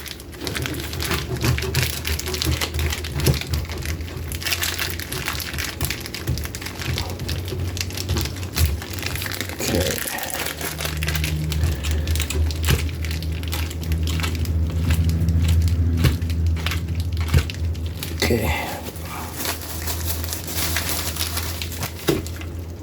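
Block of cheddar cheese being shredded on a grater by hand: a long run of quick rasping strokes. A low hum sits under the middle part.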